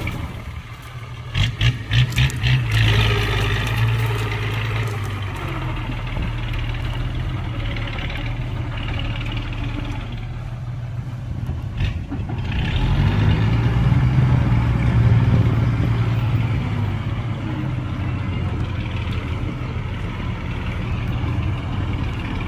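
Heavy diesel earthmoving machinery, a bulldozer and dump trucks, running steadily. About a second and a half in there is a quick run of about five sharp knocks. Past the middle, the engine grows louder for a few seconds as it works harder.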